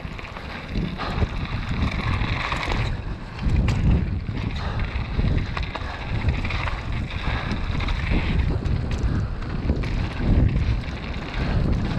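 Downhill mountain bike descending a dirt and gravel trail at speed: tyres rolling and crunching over the surface, with scattered clicks and rattles from the bike. Heavy wind buffets the action camera's microphone with a low, surging rumble.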